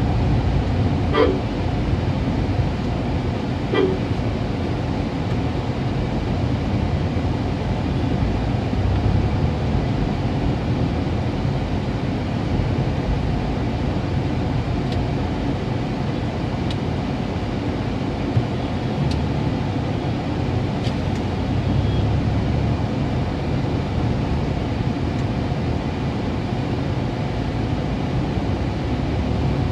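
Steady low rumble of a car's engine and road noise heard from inside the cabin while driving in town traffic, with two brief vehicle horn toots, about a second in and near four seconds.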